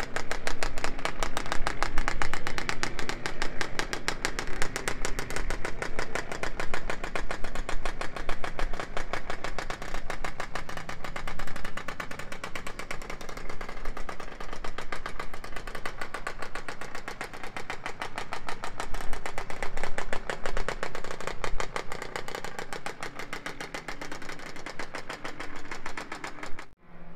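Kreidler two-stroke single-cylinder racing motorcycle engine running on its stand: a rapid, even stream of firing pulses whose level swells and eases a few times.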